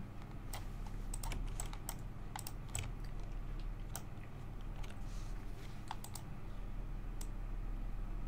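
Irregular, sharp clicks from a computer mouse and keyboard, some in quick pairs, over a steady low electrical hum.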